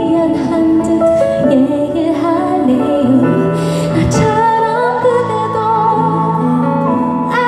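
A woman singing a slow, tender ballad live into a microphone with accompaniment, amplified through a large outdoor sound system and heard from within the audience. About five seconds in, a note slides upward and is held until near the end.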